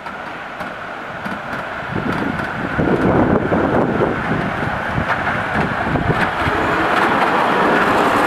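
Ride-on miniature garden-railway train rolling past close by, its running noise growing louder over the first three seconds as it nears and then staying loud.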